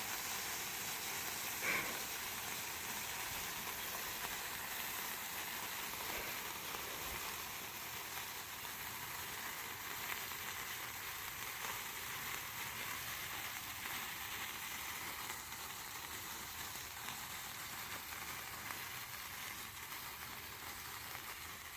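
Ground firework fountain hissing steadily as it sprays sparks, with a faint pop about two seconds in, slowly dying down.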